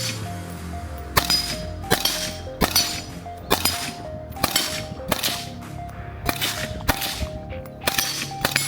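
Suppressed 5.56 AR-15 rifle, a Sons of Liberty Gunworks OB1, firing about nine single shots a bit under a second apart through a Huxwrx Flow Through 556 flow-through suppressor. The reports are crisp and sharp but not piercing.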